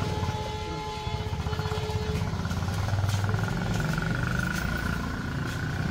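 Motorcycle engine running steadily, a continuous low rumble.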